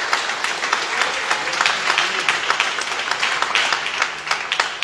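Congregation applauding with dense, irregular hand claps that begin to thin out at the very end.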